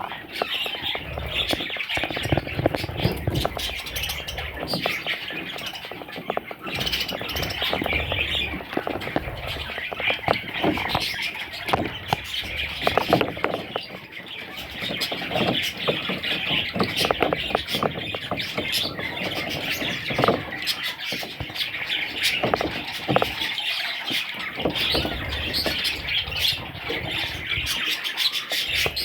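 Budgerigars chattering and squawking, a dense, unbroken stream of short sharp calls and warbles.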